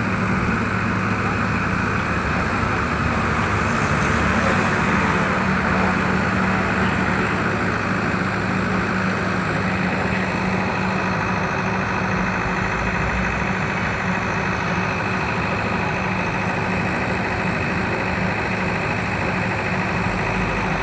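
Caterpillar 350 excavator's diesel engine running steadily, swelling slightly about five seconds in.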